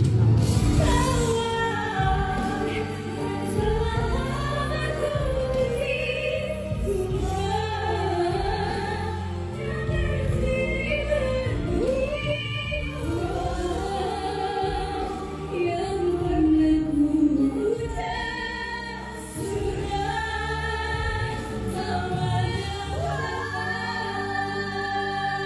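Women singing a song live with instrumental accompaniment, several voices taking turns on the lines.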